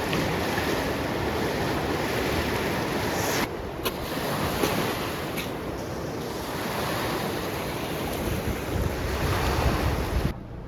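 A swollen, fast river rushing steadily, with wind buffeting the microphone. The sound drops abruptly in level about three and a half seconds in.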